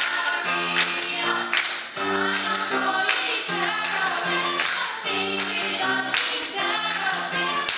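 A girls' vocal ensemble singing in several-part harmony, with hand claps along with the song.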